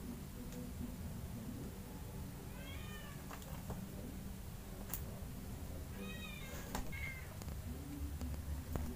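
Kitten meowing twice, a few seconds apart, in short high-pitched mews, with a brief squeak right after the second. Faint scattered clicks and a low steady hum lie underneath.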